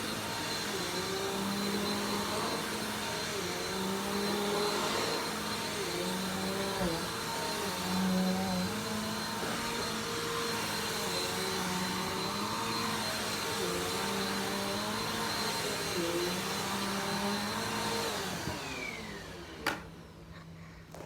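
Vacuum cleaner running, its pitch wavering. Near the end it is switched off and the motor winds down with a falling whine, followed by a sharp click.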